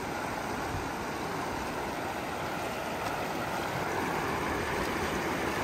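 Shallow river water running over rocks: a steady rushing with no breaks.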